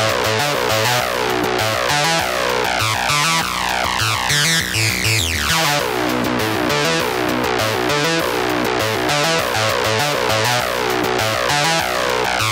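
Electronic intro music led by synthesizer, with a steady beat and a sweeping effect about halfway through.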